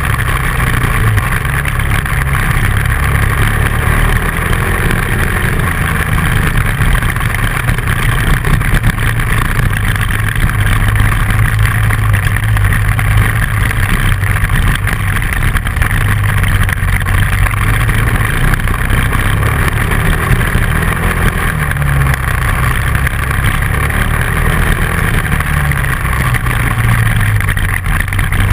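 Dual-sport motorcycle engine running under way, its pitch shifting up and down with the throttle, over a steady rush of wind and road noise.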